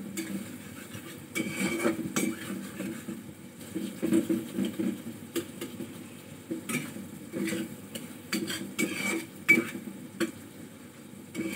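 Metal spatula stirring pointed gourd pieces in poppy-seed paste in a metal pan, with irregular scrapes and knocks against the pan and one sharper clink near the end.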